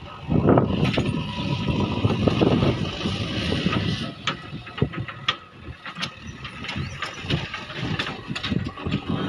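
JCB 3DX backhoe loader's diesel engine running, starting up loud and uneven just after the start, with several sharp knocks about halfway through.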